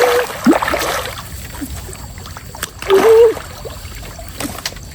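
Water splashing, with scattered clicks and knocks. Two short pitched voice-like sounds come near the start and again about three seconds in.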